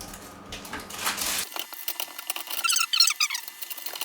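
Plastic parts of an electric lawn mower squeaking as they are handled. A quick run of short, high squeaks falling in pitch comes about two-thirds of the way through, after some rustling handling noise.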